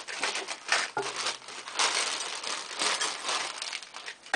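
A shopping bag rustling and crinkling as it is handled and pulled out, in irregular crackly bursts.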